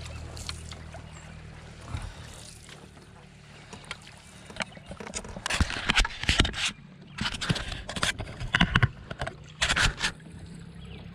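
Canoe paddles dipping and pulling through choppy lake water, a run of splashy strokes about a second apart starting about halfway through, over a steady low rumble.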